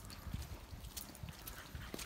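Footsteps walking along a muddy woodland track: an irregular run of soft low thumps and short clicks.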